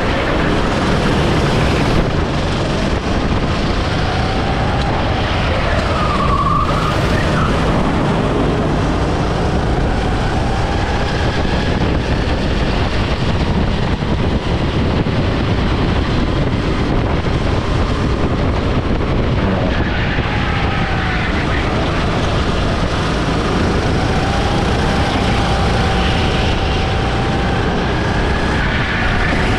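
Go-kart engine running hard at racing speed, its pitch rising and falling as the kart accelerates and slows through the corners, under a heavy steady rushing noise of wind and track.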